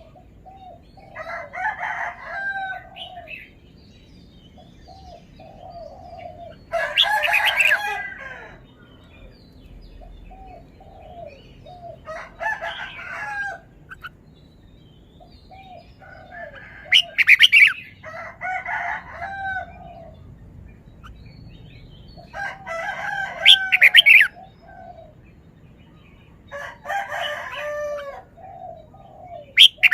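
Red-whiskered bulbul singing short, bright song phrases every few seconds, with soft short chirps between them.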